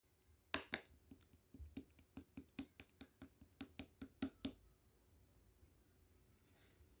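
Clear slime being pressed and worked by hand, giving a quick, irregular run of sharp clicking pops that stops about four and a half seconds in. A faint soft rustle follows near the end.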